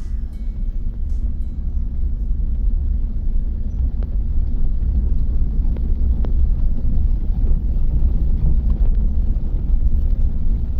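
Steady low rumbling noise, strongest in the deep bass, with a few faint clicks.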